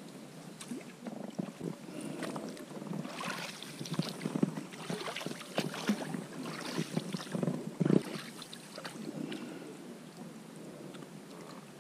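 Irregular splashing and knocking of an inflatable PVC boat on a river as it is worked along, busiest in the middle, with one sharper knock near the end of that busy stretch.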